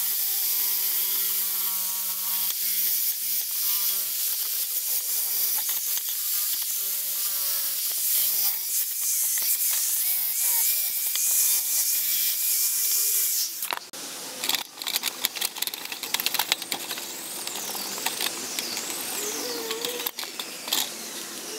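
Corded electric drill spinning a wire wheel brush against the old jigsaw's metal: a steady motor whine under a harsh scratching hiss, the pitch sagging as it is pressed harder. It stops about 14 seconds in, followed by clicks and rubbing as the saw is handled.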